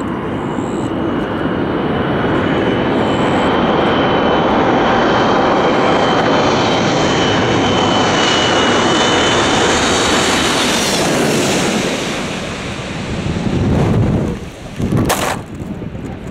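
Airliner coming in low overhead to land: a loud rushing engine noise with a steady high whine, building over a few seconds, holding, then fading as it passes. A brief low rumble follows near the end.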